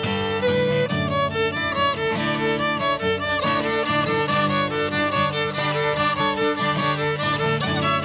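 Instrumental music: a violin playing a melody of short, quick notes over strummed acoustic guitar chords, with no singing.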